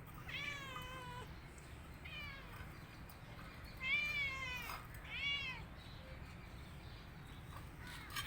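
Domestic cat meowing four times in the first six seconds, each meow rising then falling in pitch.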